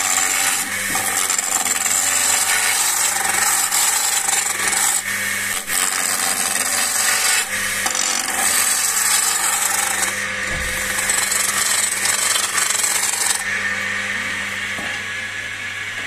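Skew chisel shaving a spinning walking-stick blank on a wood lathe: a steady hiss of cutting in several long passes with short breaks, which stops about 13 seconds in. The lathe's motor hum runs underneath.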